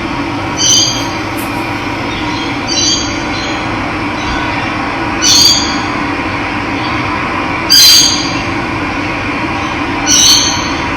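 Steady rush of running water with a bird calling over it: a short call about every two and a half seconds, five times, the fourth the loudest.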